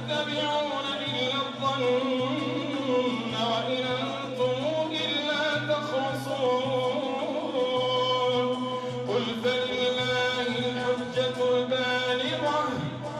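A man's voice chanting Quranic recitation in long melodic phrases, the imam leading the Taraweeh night prayer into a microphone.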